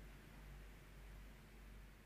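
Near silence: faint steady hiss with a low hum.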